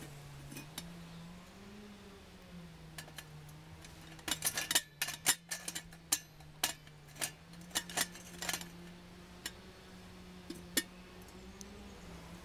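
Sharp metallic clinks and rattles from a tall steel camp pot and its wire handle knocking against a stainless steel wood gas stove and its pan supports as the pot is set into the stove and lifted out. The clinks come thickest about four to six seconds in and thin out after, over a steady low hum.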